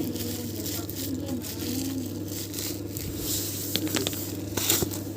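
Packaging being handled and torn open: rustling and tearing, with a few sharp clicks about four seconds in, over a steady low hum.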